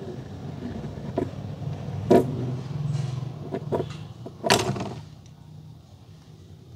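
Die-cast toy car rolled by hand across a board, its wheels giving a low rumble with a few clicks, then a short splash as it drops into a shallow tray of water about four and a half seconds in.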